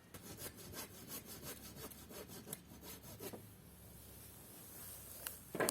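Saw cutting through wood with rapid, even strokes for about three and a half seconds, then fainter; a sharp knock near the end.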